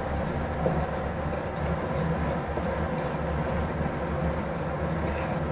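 A spatula stirring sugar into thick, pasty bread halwa in a nonstick pan, over a steady low hum.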